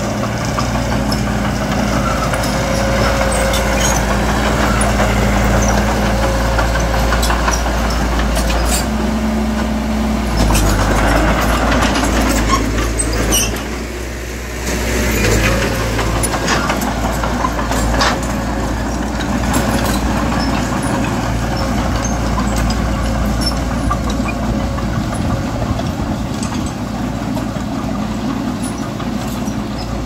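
Heavy diesel earthmoving machinery running, a low steady engine note that shifts pitch about ten seconds in and dips briefly a few seconds later. Scattered knocks and clanks are heard over it.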